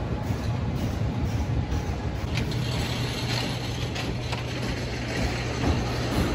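Wooden roller coaster train rumbling along its track as it runs in toward the station, over a steady low hum; the rumble grows brighter about halfway through.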